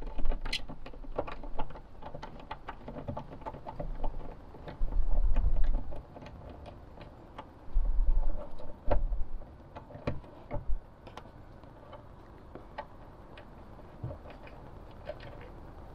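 Ratchet wrench and socket extension clicking irregularly while backing out a 7mm screw from a truck door panel, with a few low handling thumps around five and eight seconds in.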